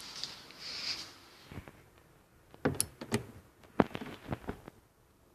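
Socket ratchet being fitted onto a small 8 mm trim screw and worked, giving a handful of sharp, irregular clicks and knocks in the middle seconds after a short rustle at the start.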